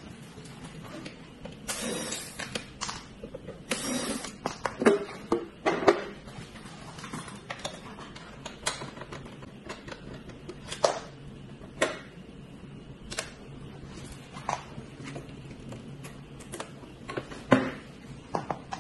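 Scattered clicks, knocks and short scrapes of hand work on a treadmill: the plastic motor cover coming off, and the hex key, cables and metal roller being handled.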